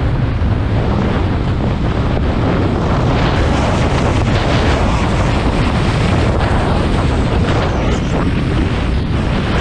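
Heavy wind rushing over a ski camera's microphone at high downhill speed, with the skis scraping over chopped, tracked snow.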